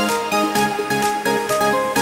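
Electronic background music with a steady beat and a melody of short held notes.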